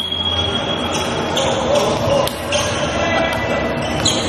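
Echoing volleyball court sounds in a large gymnasium: players' voices and calls, a high steady tone for the first second and a half, and a few sharp knocks of the ball on the hardwood floor, one about two seconds in and one near the end.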